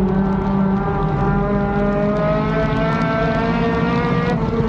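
Race car engine heard from inside the cockpit, pulling under load with its pitch climbing steadily, then dropping suddenly a little past four seconds in.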